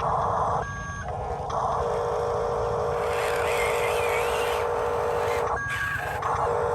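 Radio-controlled construction models running, their electric motors and gears whining steadily. The whine stops twice, briefly, with a short high tone at the start of each pause.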